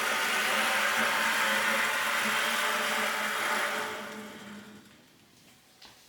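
An electric motor whirring steadily with a low hum, fading away about four seconds in; a faint click follows near the end.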